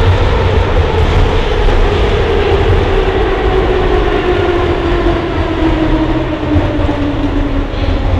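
Soviet-built 81-717-type metro carriage heard from inside while running: a loud, steady rumble of wheels and running gear, with a gear and traction-motor whine whose pitch falls steadily as the train slows.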